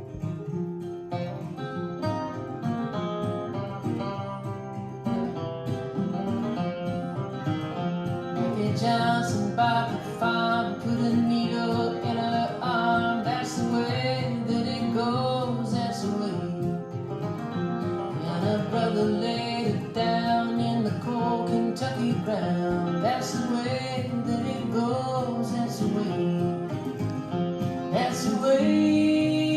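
Music played on plucked strings, with guitar to the fore, in a country style; it fills out and grows a little louder about a third of the way in.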